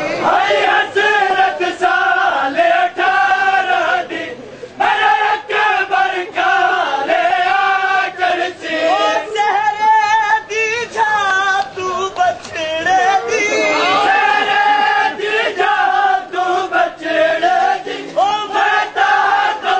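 A Punjabi noha (Shia lament) chanted by a crowd of men, several voices singing the melody together, with sharp slaps from chest-beating (matam) running through it.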